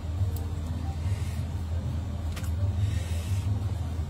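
Steady low machine hum with a slight pulse, and two faint clicks, about half a second and two and a half seconds in.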